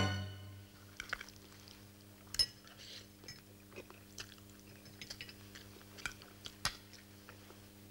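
Cutlery clicking against china plates, with scattered small clinks and chewing at a dinner table, over a steady low hum. The two sharpest clinks fall about two and a half and six and a half seconds in. A sad violin music cue dies away in the first moment.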